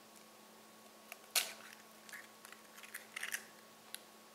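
A hen's egg being cracked and pulled apart by hand over a glass bowl: one sharp crack about a second and a half in, then small crackles and clicks of broken shell. The shell gives way as a finger pushes through it.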